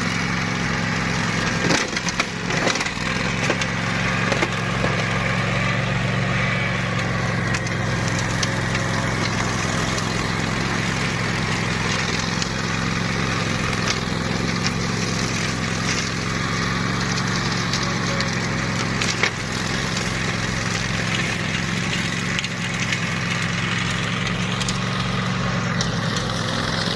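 OREC RM98 mower's Kawasaki 25 hp engine running steadily under load while its blades chop through vegetation. Snapping and splintering cracks of stems and debris are scattered through the sound.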